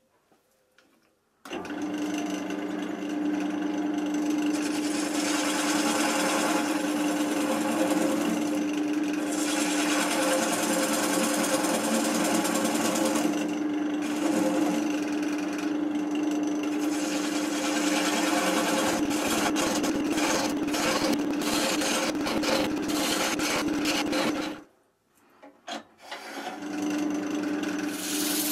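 Wood lathe starting up about a second and a half in and running with a steady motor hum while a hand turning tool scrapes and cuts the spinning oak, a rasping sound that turns fast and stuttering for a few seconds. The lathe stops near the end and starts up again.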